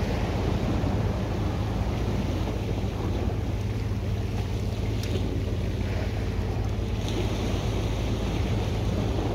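Wind buffeting the microphone in a steady low rumble, over sea surf washing against rocks.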